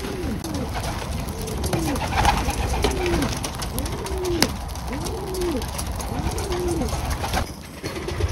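Domestic pigeons cooing, a run of rising-and-falling low coos about one a second, with scattered light clicks and one sharp click partway through.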